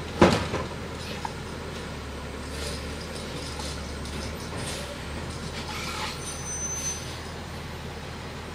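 Automated side-loader garbage truck idling, with one loud bang about a quarter second in as its arm empties a yard-waste cart into the hopper. Fainter mechanical clatter follows over the steady engine hum.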